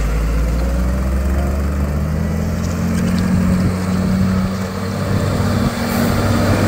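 JCB Fastrac 2170 tractor's diesel engine running steadily as the tractor swings a tight four-wheel-steer circle on a wet road. Near the end, a hiss builds as it comes closer, which is its tyres on the wet tarmac.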